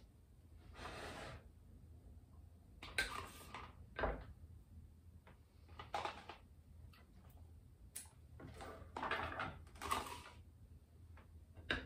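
Knife sawing through a frosted bundt cake on a wooden board and slices being put into plastic cups: a series of soft scrapes with a few light knocks.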